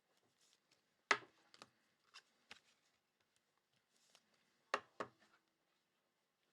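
Desk handling sounds: scattered light clicks and taps, with sharp knocks about a second in and twice near five seconds in.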